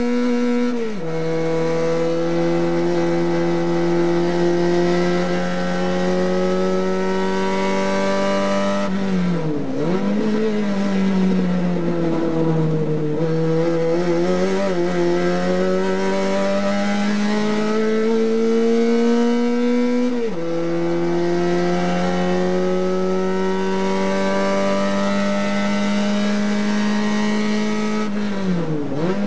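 Race car engine heard from inside the cockpit, pulling hard and climbing steadily in pitch. About a second in, and again about two-thirds of the way through, the pitch drops sharply as the driver shifts up. Around a third of the way in, and again at the very end, the pitch falls and wavers as he lifts off and downshifts for corners.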